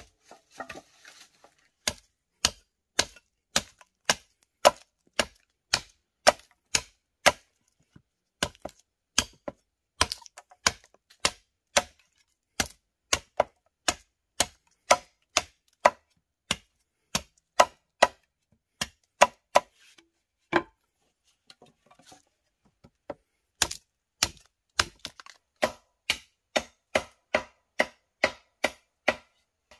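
Chopping into a sapling's wooden trunk with a blade, sharp knocks at about two a second, with a pause of a couple of seconds a little after the middle before the chopping resumes.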